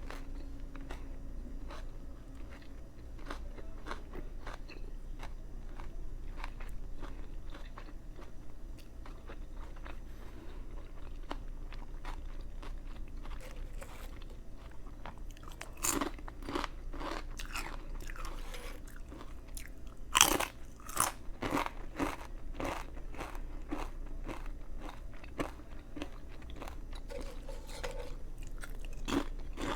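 Close-up biting and chewing of a Subway veggie patty sandwich: a steady run of small wet chewing clicks. Louder crunchy bites cluster from about halfway through, and the loudest comes about two-thirds of the way in.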